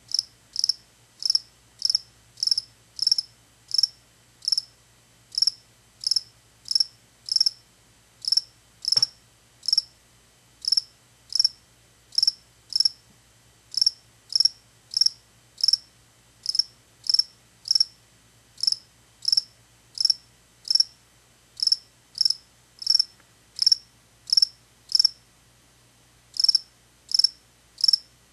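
Male field cricket chirping: short, high chirps repeated steadily at about one and a half a second, with a few brief pauses.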